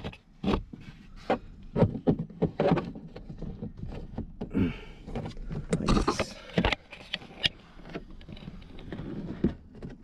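A pry tool working a Ram 1500's dash-corner speaker grille loose: a string of sharp plastic clicks, knocks and scrapes at irregular intervals.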